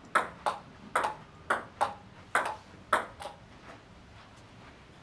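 Table tennis ball in a forehand push rally: sharp clicks of the ball on the bats and the table come in quick pairs for about three seconds. After that come a few fainter taps that die away.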